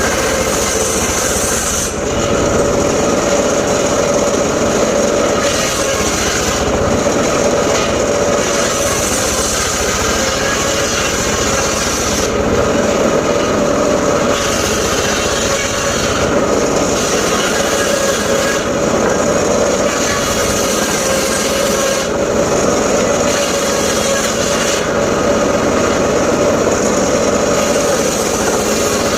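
Engine-driven homemade circular saw running steadily while it cuts mahogany, its blade biting into the wood in repeated passes every few seconds.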